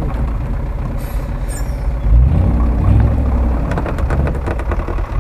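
UAZ-469 off-road vehicle's engine running under load as it drives through snow and brush, its low rumble growing louder about two seconds in. A brief high-pitched squeal sounds about a second in.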